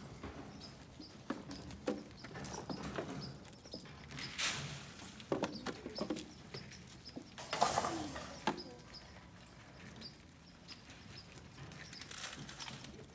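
Farm animals moving about in a barn pen: scattered hoof knocks and shuffling, with two louder noisy bursts about four and a half and eight seconds in.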